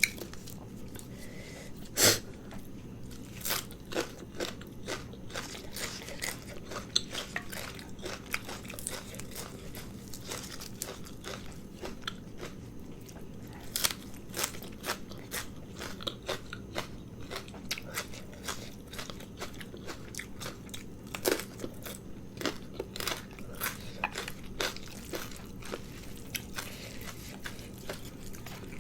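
A person chewing and biting food close to the microphone, with irregular crisp crunches and mouth sounds.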